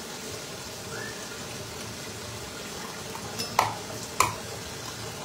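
A knife striking a cutting board twice, two sharp knocks about half a second apart, while fish are being split and cleaned. A steady hiss runs underneath.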